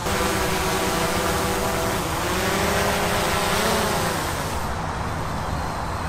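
DJI Mavic 2 Pro quadcopter's propellers buzzing as it hovers down to be caught by hand. The pitch dips about two seconds in, rises again, then the buzz grows softer near the end.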